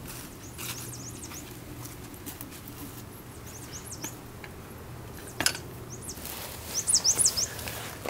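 Footsteps crunching through dry leaf litter while small birds chirp; a quick run of high chirps about seven seconds in is the loudest sound.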